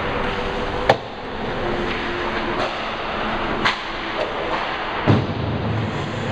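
Hockey play on the rink: a steady rush of rink noise broken by three sharp cracks of stick and puck, about a second in, near the middle and about five seconds in.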